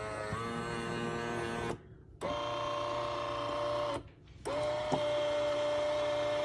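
Café Affetto automatic espresso machine's internal motor running in three whining runs of about two seconds each, with short pauses between them, as it starts an espresso cycle.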